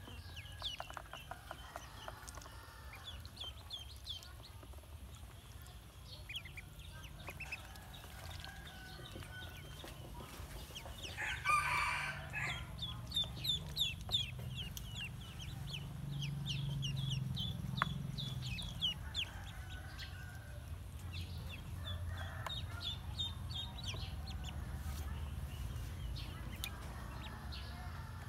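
A group of domestic ducklings peeping: many short, high chirps in quick runs. A louder, lower call breaks in once about twelve seconds in.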